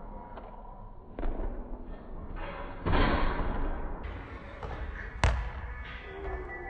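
A basketball dunk on an indoor hoop: a thump, then a loud slam and rattle of the rim and backboard about three seconds in, followed by a single sharp bounce of the ball on the hardwood gym floor.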